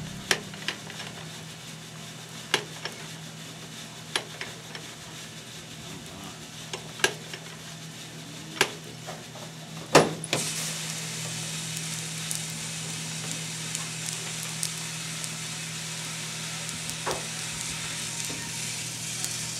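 Probat drum coffee roaster running with a steady low hum and occasional sharp clicks. About halfway there is a loud clack, then a steady rushing hiss as the freshly roasted beans pour out and churn in the cooling tray.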